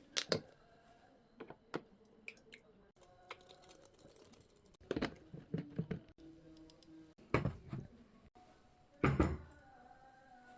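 Scattered light clicks and knocks of kitchen items being handled, with small clusters about five, seven and a half and nine seconds in, a few of them ringing briefly.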